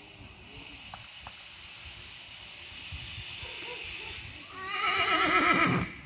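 A horse whinnies once, loudly, starting about four and a half seconds in: a call of about a second and a half that wavers in pitch as it goes.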